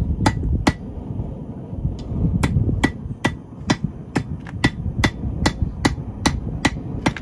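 Hand hammer striking a 5/16-inch steel rod on an anvil to draw it out, in a steady rhythm of about two or three blows a second, each with a short metallic ring. The blows pause for about a second and a half near the start, then run on evenly.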